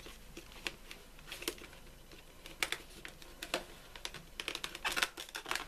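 Fingernails tapping and picking at a thick card pen box while prying its end flap open: scattered light clicks, coming thicker near the end.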